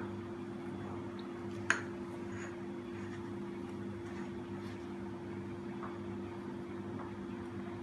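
Steady low mechanical hum with one sharp clink about two seconds in and a few faint taps, as kitchen utensils are handled during masala preparation.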